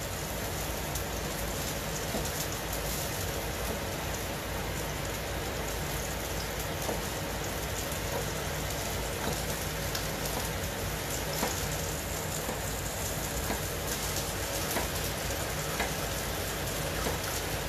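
Food sizzling in a pan: a steady crackling hiss, with a few faint knife taps on a wooden cutting board as a poblano pepper is sliced into rings.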